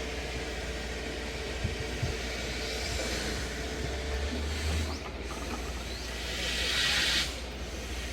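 Steady low machine hum under a hiss, the hiss swelling louder about six to seven seconds in, then cutting off suddenly.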